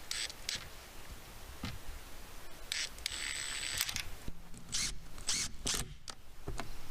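Tools working on a screen door's hinge hardware: irregular short mechanical clicks, ratcheting and scrapes, with one longer scrape about three seconds in.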